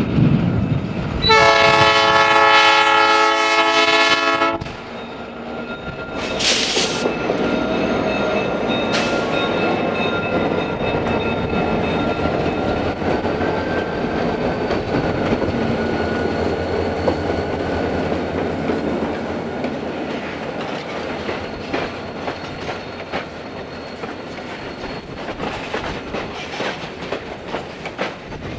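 Wisconsin & Southern EMD GP38-2 diesel locomotive blowing its Nathan P3 air horn in one long chord of about three seconds. Its engine and a cut of boxcars then roll past, wheels clicking over the rail joints.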